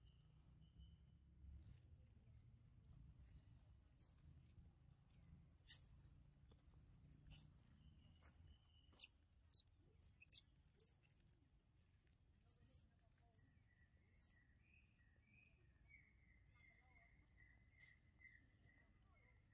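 Quiet outdoor ambience: a steady high insect drone with a bird warbling through the last few seconds. In the middle come scattered sharp clicks and crackles as a young macaque handles and bites into a mango among dry leaves, the loudest two just before halfway.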